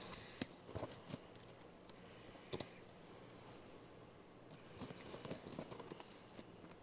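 Faint, scattered clicks and taps of a capuchin monkey's fingers working the plastic buckle and snaps of a fabric busy board. The sharpest click comes about two and a half seconds in, and a quick run of small ticks follows near the end.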